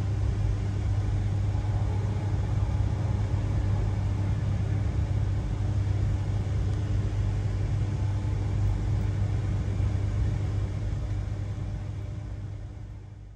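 Steady low vehicle rumble with a constant deep hum, fading out near the end.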